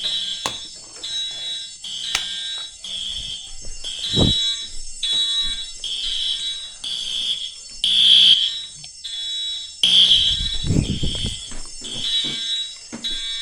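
Fire alarm sounding in repeated high-pitched beeps, about one a second, with a few low thumps and rustles about four seconds in and again around ten seconds in.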